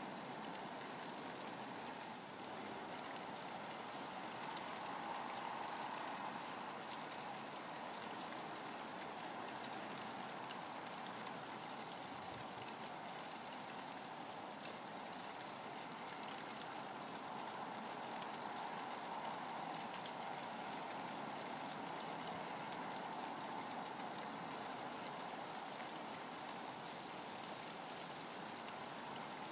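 Steady rain falling, an even patter with scattered faint drop ticks.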